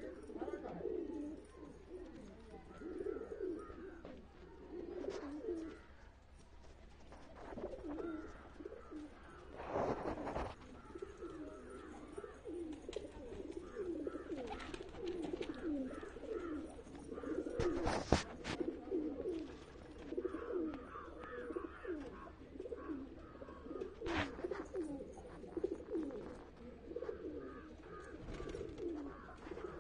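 A flock of domestic pigeons cooing, many overlapping calls that rise and fall without pause. A few brief sharp noises cut through, the loudest about two-thirds of the way in.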